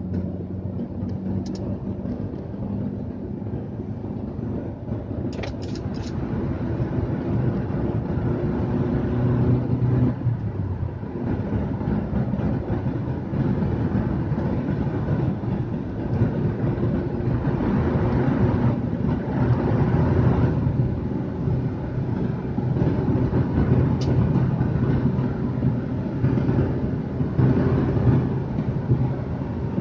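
Car engine and tyre noise heard from inside the cabin while driving at road speed: a steady low drone whose engine note shifts in pitch a few times. A few short clicks come about five seconds in.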